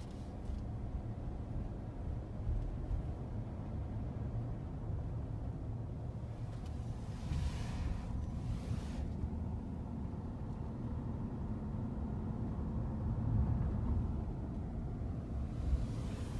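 Low, steady rumble of a car's cabin while driving slowly, with a short rushing hiss about halfway through.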